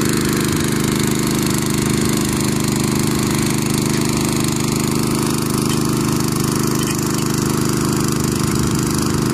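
Portable engine-driven water pump running steadily at a constant speed, loud and even, while it pumps water through hoses to fill a water bag.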